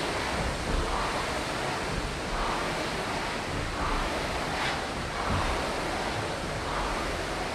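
A steady rushing hiss, with faint soft swells about every two seconds.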